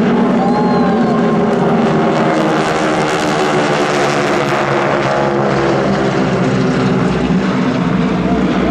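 Six North American SNJ Texans passing overhead in formation, their Pratt & Whitney R-1340 nine-cylinder radial engines and propellers running in a steady, loud drone. The sound grows brighter and hissier in the middle of the pass.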